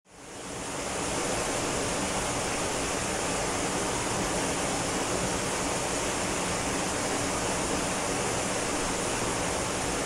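Ōko Falls, a tall waterfall pouring down a rock face into a plunge pool: a steady, even rush of falling water that fades in over the first second.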